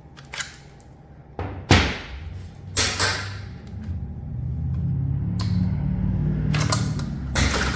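Tomahawks thrown and striking a target: several sharp thunks and knocks, a second or so apart.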